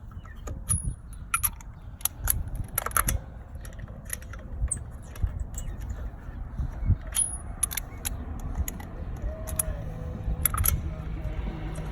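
Lug nuts being threaded onto a car's wheel studs by hand with a socket: scattered metallic clicks and clinks, over a low steady rumble.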